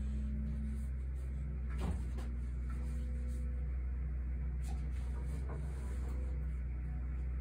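A steady low hum, with a few light knocks and rustles from a carbon fork's steerer tube being handled and wiped out with a paper towel; the sharpest knock comes about two seconds in.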